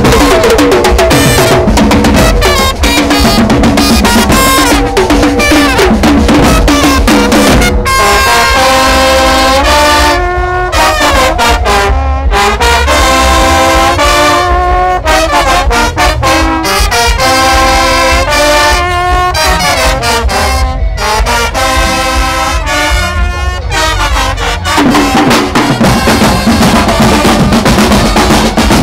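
Street brass band playing: a trumpet section carries a melody over snare drums, bass drums and cymbals. The drums lead for the first several seconds; the horns take over clearly from about eight seconds in until a few seconds before the end, when the drums come back to the front.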